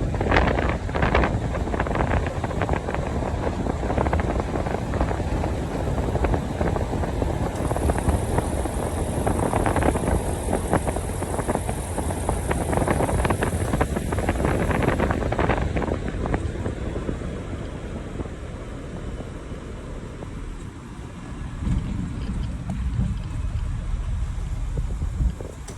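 Wind buffeting the microphone: a rough, gusty low rumble that eases somewhat after the middle.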